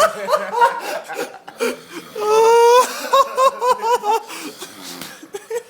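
Laughter: wavering squeals at first, a long high-pitched held note about two seconds in, then a quick run of ha-ha pulses, about four a second.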